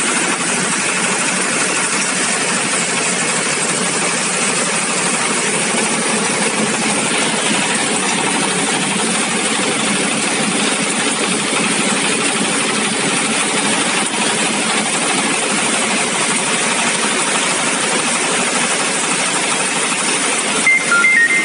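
Rice milling machine running steadily under load as grain is fed through it, a dense continuous mechanical din with no breaks. A few bright electronic music notes come in near the end.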